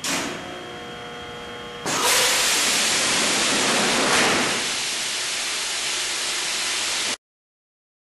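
Crash test sled run: a quieter stretch with a few steady tones, then from about two seconds in a loud, even rushing hiss with a brief louder burst about four seconds in, ending abruptly.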